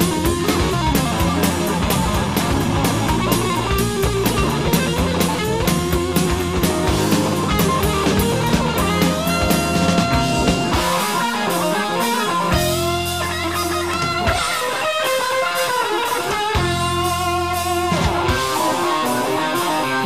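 Rock music with guitar and drums laid over the footage; the beat thins out in the middle, leaving held guitar notes, then returns near the end.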